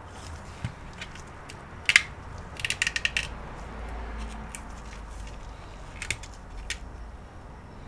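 Plastic casing of an ARRIS cable modem handled and turned over in gloved hands: a sharp click about two seconds in, a quick run of clicks around three seconds, and a few more clicks later, over a low steady hum.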